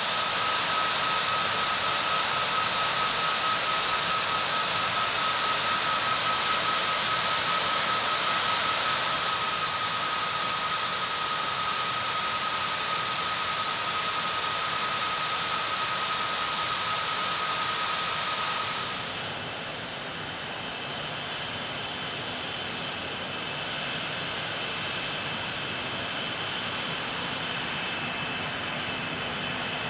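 F/A-18 Hornet jet engines running at taxi power: a steady rushing jet noise with a fixed whine. About two-thirds of the way through, the sound drops a little and the whine gives way to higher, thinner whistling tones.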